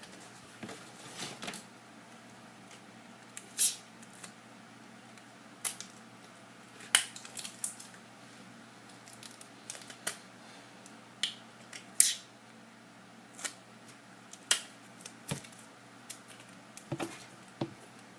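Sticky tape and a folded paper airplane being handled: scattered short crinkles and rips, the sharpest about twelve seconds in.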